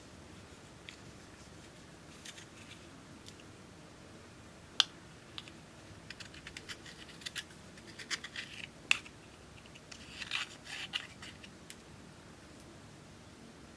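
Close-up handling sounds of small objects: scattered sharp clicks, the loudest about five and nine seconds in, and short runs of scratchy scraping and crackling between them.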